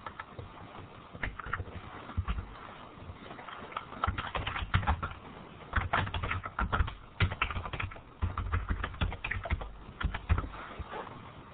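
Typing on a computer keyboard: irregular runs of quick keystrokes, with the densest runs in the second half.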